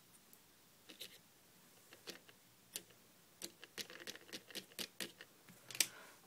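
Faint, irregular clicks and taps of a small toy fork poking at hazelnuts on a plate. The taps are scattered at first and come quicker in the second half.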